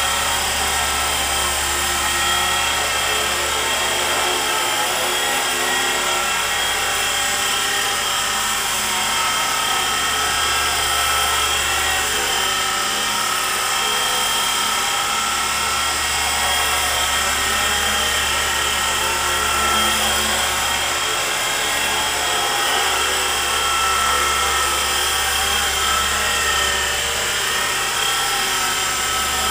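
E-flite Blade SR120 micro electric RC helicopter in flight: a steady high whine from its electric motor with the whir of the rotor blades. The low rotor hum drops out and returns several times as it manoeuvres.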